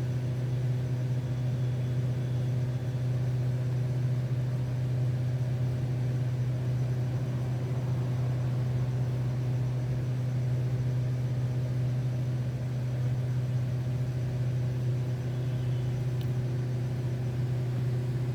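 Steady low hum that holds one unchanging pitch throughout, like a small motor or electrical drone.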